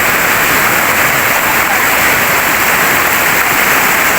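Rushing water of a stream or small waterfall: a steady, loud hiss of flowing water.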